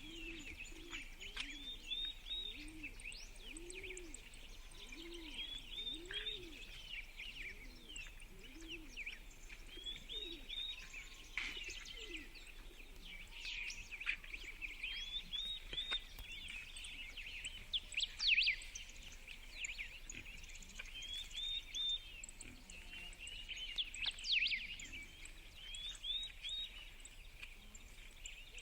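Dawn chorus of several birds chirping and singing together, with one short song phrase recurring every few seconds. Beneath it, a low call repeats about once a second through the first eight seconds, and a loud sharp chirp stands out a little past halfway.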